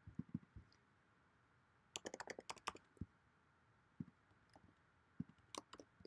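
Faint typing on a computer keyboard: a quick run of keystrokes about two seconds in, then scattered single key presses.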